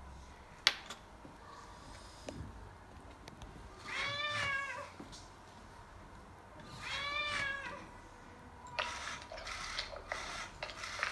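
Two recorded cat meows from the LEGO Boost Frankie robot cat, played through the tablet's speaker, the first about four seconds in and the second about seven seconds in, each rising then falling in pitch. A few short noisy sounds follow near the end.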